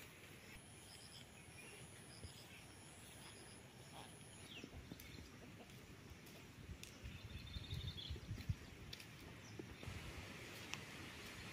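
Faint rural ambience: scattered bird chirps and a high, steady insect buzz for the first few seconds, with low rumbling and a few soft knocks in the second half.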